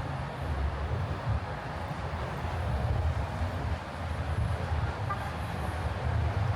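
City traffic noise: a steady low rumble with a hiss of passing vehicles over it.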